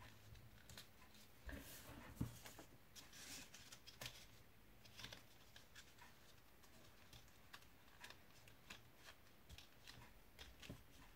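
Faint rustling and soft clicks of card stock being handled, flexed and pressed by hand, with a couple of sharper taps about two and four seconds in.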